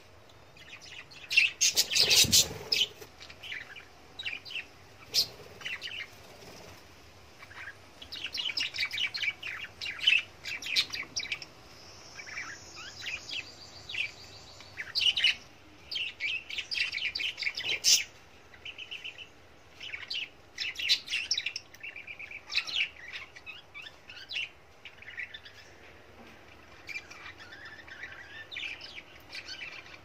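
Several budgerigars chirping and chattering in quick bursts of short, high, scratchy calls. A louder rustling burst comes about two seconds in, and a single sharp click near the middle.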